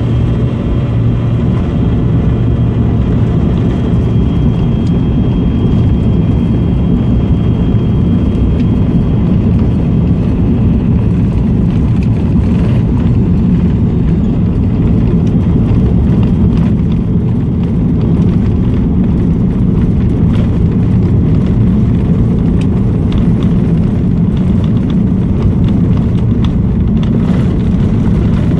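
Airliner's jet engines running steadily at takeoff power, heard inside the passenger cabin, with a deep rumble of the takeoff roll. A thin high whine fades out about ten seconds in, and light rattling clicks come through in the second half.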